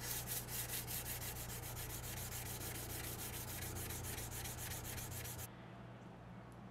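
Hand sanding a Damascus steel knife blade with 500-grit sandpaper on a backing stick: quick, even back-and-forth rubbing strokes, several a second, that stop abruptly about five and a half seconds in.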